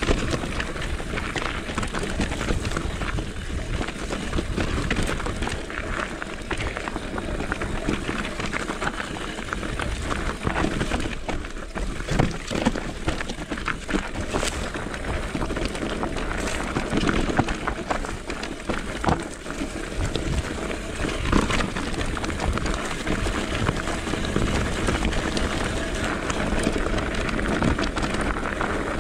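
Electric mountain bike riding over a rocky, loose-stone trail: tyres crunching on gravel and the bike clattering and knocking over rocks, with a continuous low rumble.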